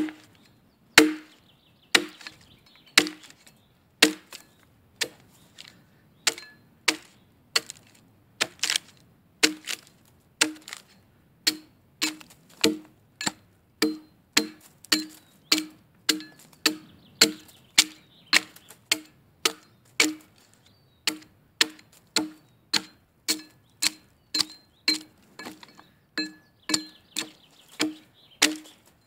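Axe hewing the side of a log square: a steady run of sharp chopping strikes into the wood, each with a short woody ring. The strokes come about once a second at first, then quicken to about two a second.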